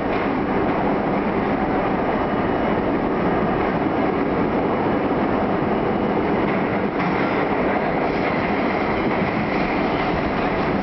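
R32 subway car running through a tunnel, heard from inside the car: a steady, continuous rumble of wheels on the rails.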